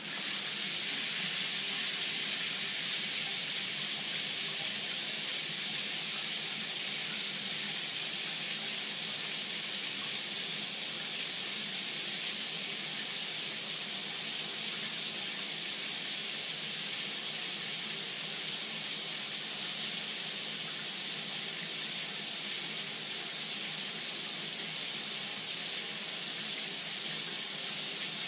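Shower running: a steady, unbroken spray of water from the shower head.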